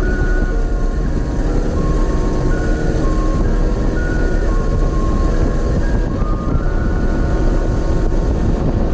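A vehicle on the move: a loud, steady rumble of road and wind noise. Faint music with short held notes plays over it.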